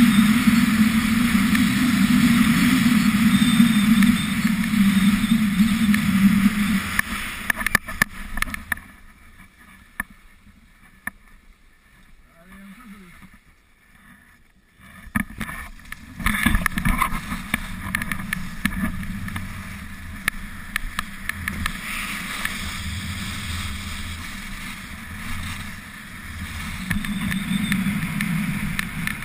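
Skis running and scraping over packed snow, with wind rushing over the action camera's microphone. The rush fades to a much quieter stretch about a third of the way in as the skier slows, then picks up again with scattered scrapes.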